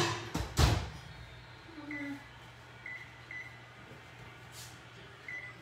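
Oven door being shut, with two knocks in the first second, followed by four short high electronic beeps spread over the next few seconds as a 20-minute timer is keyed in.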